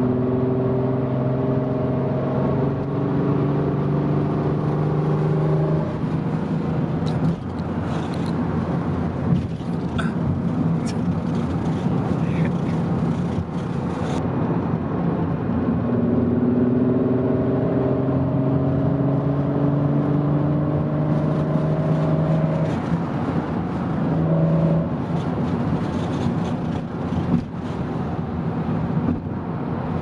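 Cabin noise in an Audi TT Mk2 (8J) at highway speed: a steady rush of wind and tyre noise, with an engine drone that comes in for two stretches of several seconds. This is the wind noise the owner puts down to a badly aligned passenger-side frameless window that no longer seals in its channel. A few light clicks are scattered through it.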